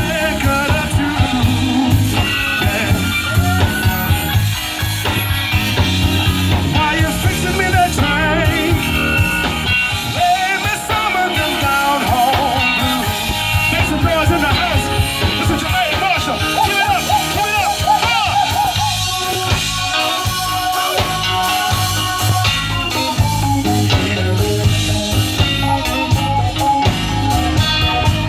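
Live band playing a blues number: electric guitar over bass and drums, with a voice singing.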